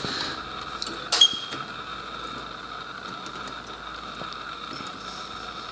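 Hands working inside the back of a BMW M3 headlight. A sharp plastic click about a second in is the twist-lock angel-eye bulb popping loose from its housing. A steady faint hum runs underneath.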